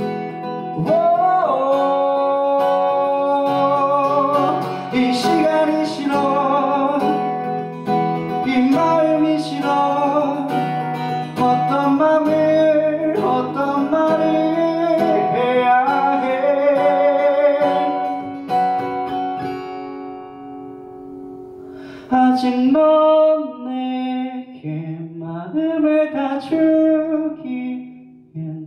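A man singing while strumming his own acoustic guitar, the voice carrying the melody over the chords. The music drops to a quieter stretch about twenty seconds in, then comes back.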